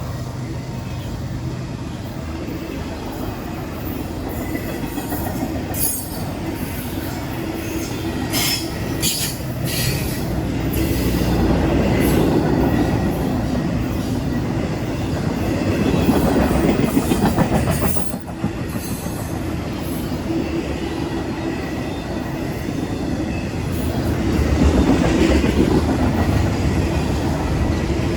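CSX freight train passing at close range: the steady rumble and clatter of wheels on the rails, swelling and easing several times, with brief high wheel squeals about a third of the way through.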